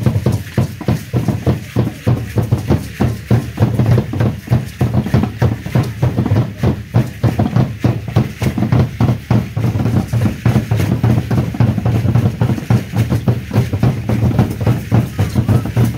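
Deep drum beating a steady, fast rhythm of about three to four strokes a second, the drumming that accompanies an Aztec dance.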